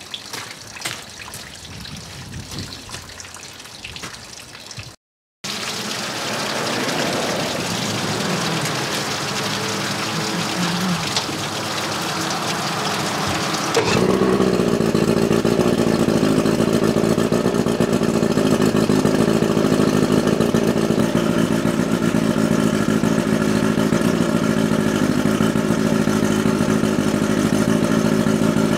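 Mercury 50 hp two-stroke outboard running steadily at idle, louder and fuller from about halfway in.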